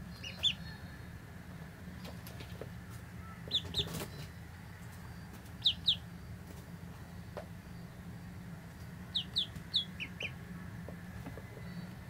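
Ducklings peeping: short, high, falling peeps in pairs and threes, a few seconds apart, over a low steady hum.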